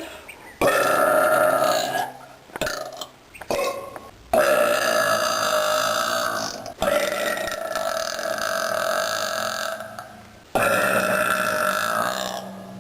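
A woman belching: four long, loud belches of two to four seconds each, the second running straight into the third.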